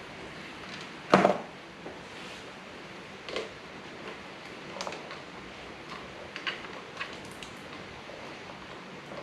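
Scattered small clicks and knocks of hands and tools working on a motorcycle's rear wiring and fittings, with one louder knock about a second in, over a steady hiss.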